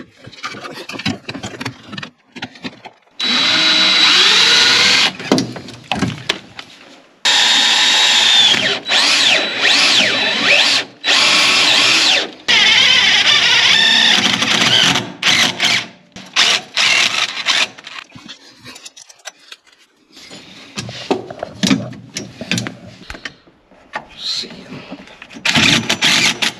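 Power drill running in several long bursts of a few seconds, the motor pitch rising as it spins up, then a string of short stop-start blips; it is drilling for and driving self-tapping screws.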